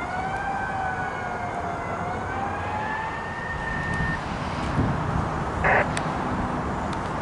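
Fire engine siren wailing, a slow rising and falling tone that stops abruptly about four seconds in, over a low rumble. A short sharp noise follows near the end.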